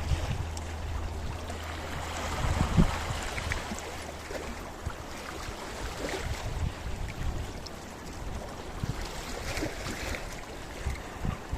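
Sea waves washing against a rocky shore, with a louder surge about three seconds in and smaller surges after it.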